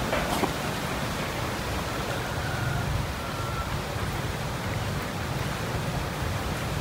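Steady background rumble and hiss with no distinct events, and only a few faint clicks near the start.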